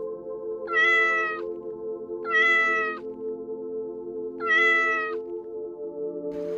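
Domestic cat meowing three times, each meow under a second long and spaced a second or more apart.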